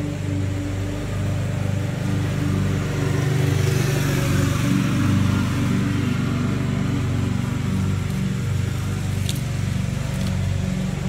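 Masking tape being peeled off a car's side skirt, with a hissing rip about four seconds in and a click later on, over a loud steady low hum.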